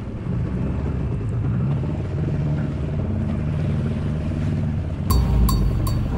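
Yamaha WaveRunner GP760 jet ski's two-stroke engine running steadily under way, with water rushing along the hull. About five seconds in, music with a thumping beat and sharp, regular clicks cuts in over it.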